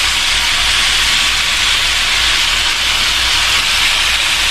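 Chicken pieces sizzling steadily in a little hot oil in a pot as they brown, the searing stage before the stew is covered and water is added.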